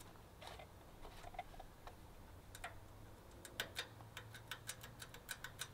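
Light metal clicking from the throttle and governor linkage of a stopped Kohler MV18 twin engine being worked by hand: a few scattered clicks, then a quick run of about five clicks a second in the last two seconds. The linkage has lost a spring, which let the engine rev out.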